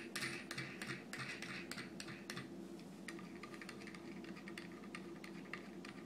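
Light, irregular metallic clicking and ticking as a hex nut is spun off a threaded steel bolt by hand, the clicks thickest in the first couple of seconds and sparser after, over a faint steady hum.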